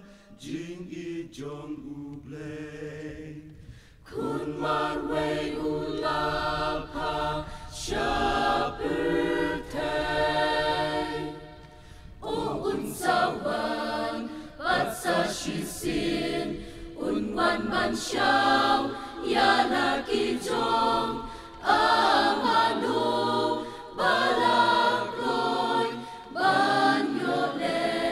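Mixed choir of women's and men's voices singing a hymn in parts, softly at first and fuller from about four seconds in.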